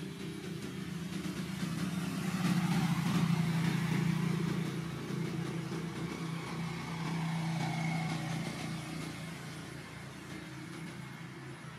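Motor vehicles passing on a road: an engine hum that swells to its loudest about three seconds in and fades, then swells again, smaller, about eight seconds in.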